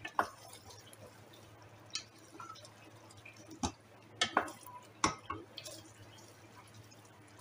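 Wooden spatula stirring a thick masala of potatoes and peas in an aluminium pot, with short knocks and scrapes against the pot, about six scattered through the stretch, over a faint steady hum.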